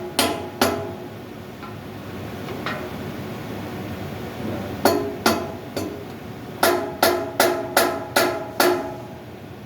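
Hammer blows on metal parts of an air handling unit blower, each strike ringing briefly with a metallic tone. There are two blows at the start and two more in the middle. Near the end comes a quick run of about six blows, some two a second.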